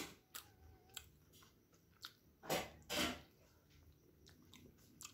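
A person chewing and eating steamed chicken momos: soft mouth clicks and wet chewing sounds, with two short louder noisy sounds about half a second apart midway through.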